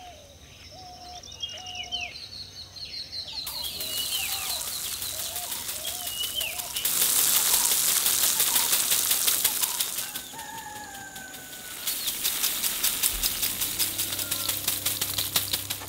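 Birds chirping at first. From about three seconds in, the dry rattle and patter of sesame seeds being shaken out of dried, upturned sesame stalks and falling onto a sheet, loudest in the middle and again near the end.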